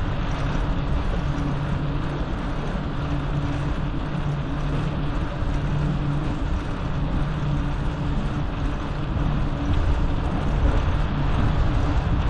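Steady vehicle and road-traffic noise with a low, even hum.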